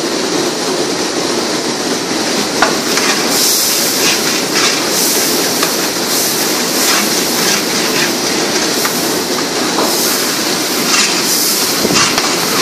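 A long metal ladle stirring a thick tomato-paste spice mixture in a large aluminium cooking pot, clicking and scraping against the pot from about two seconds in, over a steady sizzling hiss of the mixture cooking.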